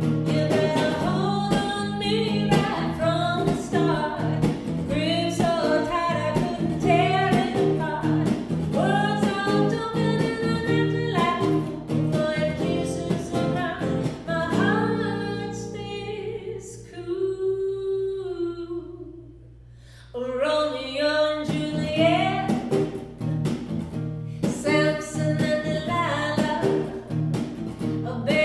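A woman singing a song into a microphone, accompanied by a man playing an archtop guitar. About halfway through, the music thins to a held chord under a few long sung notes and drops quieter for a moment, then the singing and guitar pick up again.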